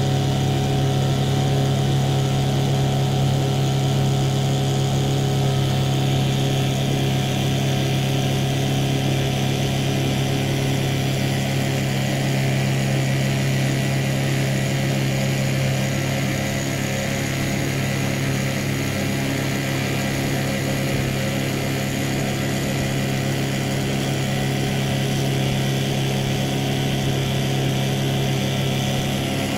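A boat's motor running at a steady speed, an even low hum that holds one pitch.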